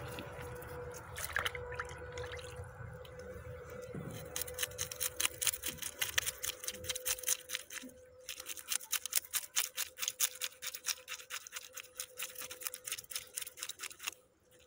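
Knife scraping the scales off a small river fish in quick, repeated strokes, starting about four seconds in with a short pause around eight seconds.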